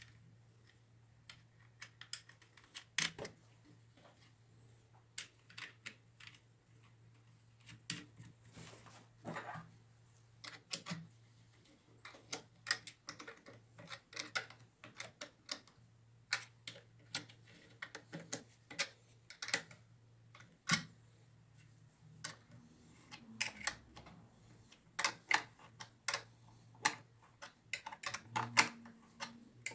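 Irregular metallic clicks and taps of hand tools and small metal parts being handled while a window-lift motor and its plate are bolted onto a mini mill's lead-screw end, over a faint steady hum.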